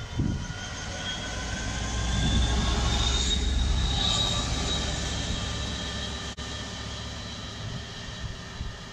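Freightliner Class 66 diesel locomotive, with its EMD two-stroke V12 engine, passing close by: a low engine rumble with a high whine over it, growing louder and loudest about two to five seconds in as it passes underneath, then fading as it moves away.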